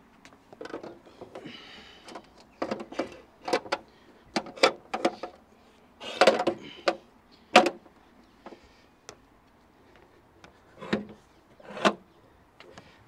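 Solar panel's metal frame being lowered and pressed into plastic mounting brackets on a boat roof: a run of irregular knocks and clicks with a short scrape, the loudest knock about seven and a half seconds in.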